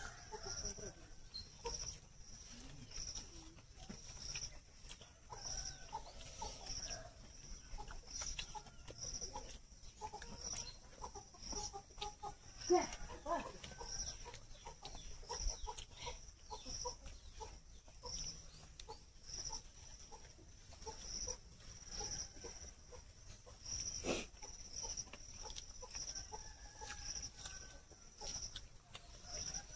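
Chickens clucking now and then, with soft eating sounds of hands mixing rice and chewing. A faint high tone pulses steadily throughout, and there is one sharp click about 24 seconds in.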